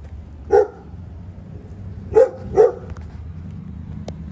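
American bully dog barking three times in short, sharp single barks: once about half a second in, then two close together past the two-second mark.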